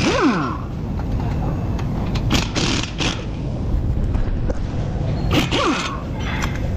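Pneumatic impact wrench on the brake caliper bolts, run in short bursts, its motor winding down in a falling whine after the bursts at the start and about five and a half seconds in. A steady low workshop rumble runs underneath.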